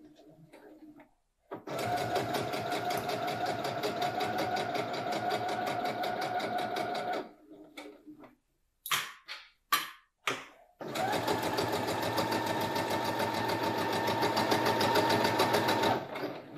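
Domestic sewing machine stitching a curved seam through two layers of fabric: two long runs of quick, even needle strokes with a short pause in the middle, broken by a few brief sounds.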